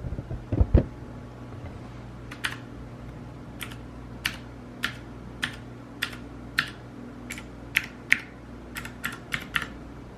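Single key presses on a Ducky One 2 Mini 60% mechanical keyboard, one at a time about every half second and coming a little closer together near the end. A couple of low thumps come just before them, about half a second in.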